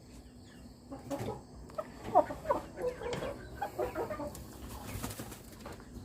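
Chickens clucking in a coop, a string of short calls about one to four and a half seconds in, with a brief rustle around five seconds in.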